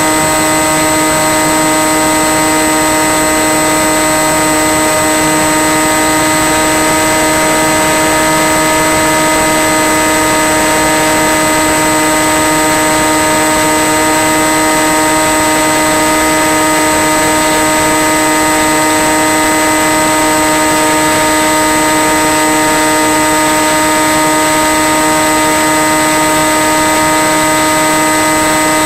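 Electric motor and propeller of a Skywalker FPV plane running at a steady cruise throttle, heard through the onboard camera's microphone as a constant hum with hiss; the pitch holds steady throughout.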